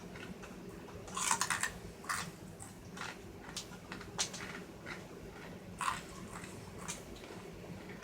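Small plastic clicks and crackles from parts of a car radio's touchscreen assembly being handled and fitted, with a quick run of them about a second in and single clicks after, over a steady low hum.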